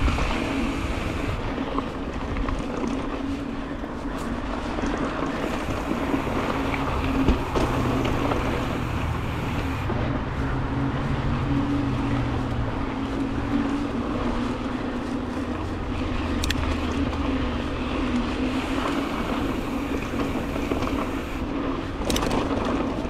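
Mountain bike being ridden on a dirt trail, heard from an on-board camera: continuous tyre rolling and wind rush on the microphone, with one sharp knock about seven seconds in.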